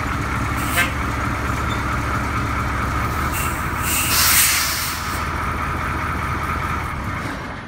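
Ford C-series fire truck's diesel engine idling steadily. There is a short click about a second in and a loud hiss of air around four seconds in.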